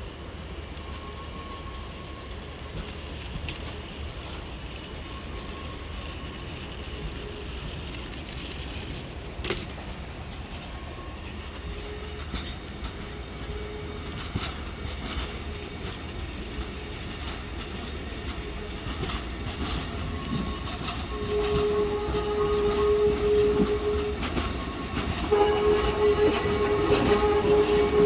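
Taipei Metro electric train rolling along curved depot tracks toward the listener, its rumble growing louder through the last third. From about twenty seconds in, steady wheel squeal from the curve rises over the running noise. There is one sharp click about nine seconds in.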